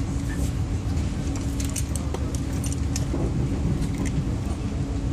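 Cabin sound of a Minuetto diesel regional train rolling slowly: a steady low rumble with a constant hum, and scattered sharp clicks and rattles.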